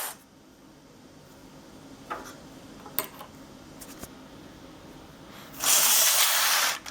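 A few light clicks, then a loud rasping noise lasting about a second near the end, with a shorter one right after.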